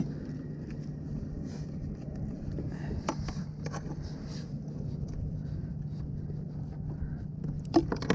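A steady low hum, with a few sharp knocks of gear on the kayak about three seconds in and again near the end.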